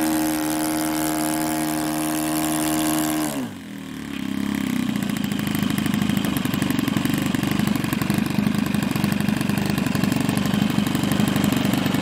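Small model-aircraft combustion engine on the Super Buccaneer running at high revs on the ground, then throttled back about three and a half seconds in, its pitch dropping, and settling into a steady idle for the rest.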